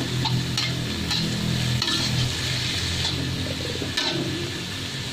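Shredded cabbage sizzling in hot oil in a metal wok while a metal spatula stirs it, with short scrapes of the spatula against the pan every second or so, over a steady low hum.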